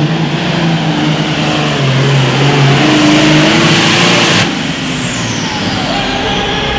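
Turbocharged diesel engine of a super farm pulling tractor running hard and getting louder, then cut back abruptly about four and a half seconds in. A high whistle then falls steadily in pitch as the turbocharger winds down.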